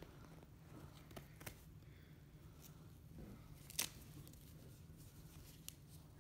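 Near silence with faint rustling and a few soft clicks as an elastic compression bandage is unwound from a leg; the sharpest click comes a little past the middle.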